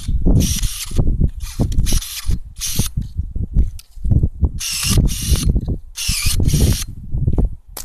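Pellenc battery-powered electric pruning shears cutting a walnut branch into short pieces. About a dozen quick cuts come in bunches, each a brief motor whirr and blade snap, over a low rumble.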